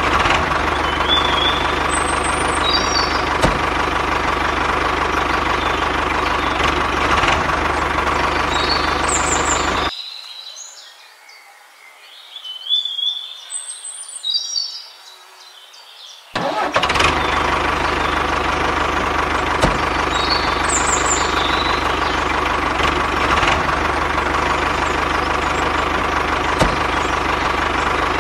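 Tractor engine running steadily at idle, with bird chirps over it. About ten seconds in the engine cuts out for some six seconds, leaving only the chirps, then comes back suddenly.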